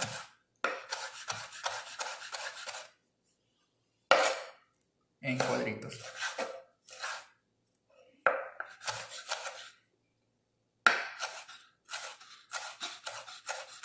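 Chef's knife dicing tomatoes on a wooden cutting board: runs of quick, sharp knife taps against the board, separated by short pauses.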